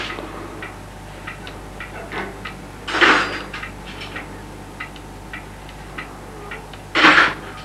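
A clock ticking softly, about two ticks a second, over a low steady hum. Two short, louder rushes of noise come about three seconds in and near the end.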